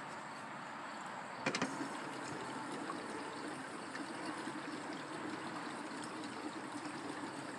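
Gasoline pouring from a gas can into a tractor's fuel tank, a steady trickling and gurgling as the tank takes the fuel. A brief cluster of sharp knocks about a second and a half in.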